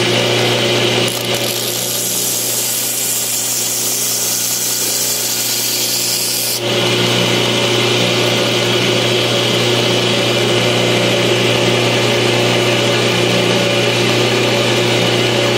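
2x72 belt grinder running steadily with a fine-grit belt of around 1200 grit, as a knife edge is ground in a single swipe to set the edge. The hiss of the belt changes from about a second in and switches back sharply at about six and a half seconds.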